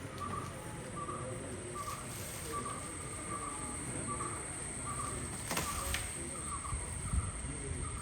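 Rhythmic chirping, about two chirps a second, over a constant high-pitched whine, with a single sharp click about five and a half seconds in.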